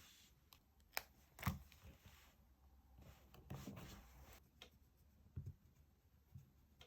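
Faint handling of paper and stickers: two soft stretches of rustling and a few sharp taps, the loudest about a second and a half in.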